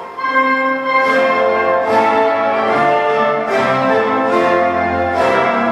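Orchestral music with brass and strings playing sustained notes.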